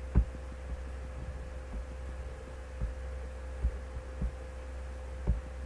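Steady low electrical hum in the recording, with a faint steady tone above it and a few soft low thumps, the loudest just after the start and near the end.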